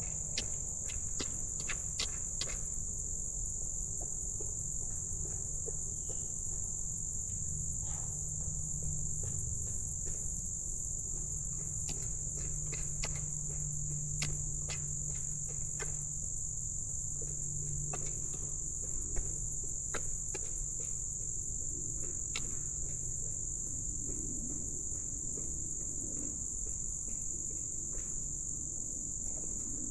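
Steady high-pitched chorus of crickets, with scattered faint clicks over it.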